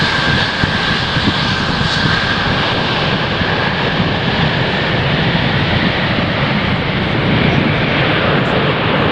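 Antonov An-225's six turbofan engines running loud on the landing roll. It is a steady rush of jet noise, with a high whine that sinks slightly in pitch and fades over the first few seconds.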